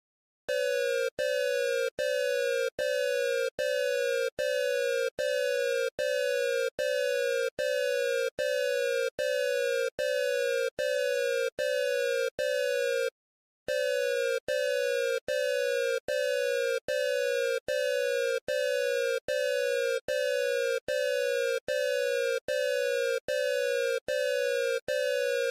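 Electronic emergency alert system alarm tone: a falling electronic beep repeated a little more than once a second, each beep sliding down in pitch. It starts about half a second in and breaks off once, briefly, about halfway through before carrying on.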